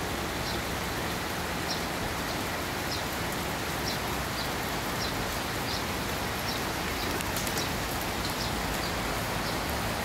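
Steady rain falling on wet paving and greenery, an even hiss, with a bird's short high chirps repeating about once a second.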